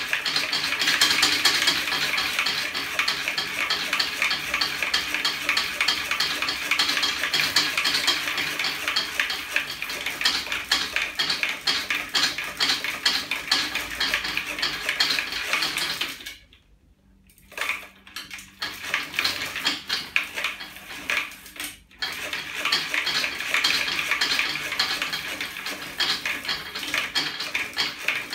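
Rapid, steady metallic clicking and clinking from a homemade magnet-driven bicycle pedal-assist linkage, its aluminium arms, springs and magnets knocking as they swing over the turning rear wheel. The clatter breaks off for about a second a little past halfway, comes back unevenly, then picks up its steady run again.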